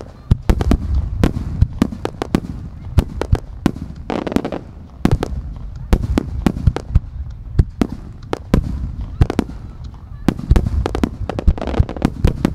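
Aerial firework shells launching and bursting in rapid succession: dense, sharp bangs, several a second, over a continuous low rumble.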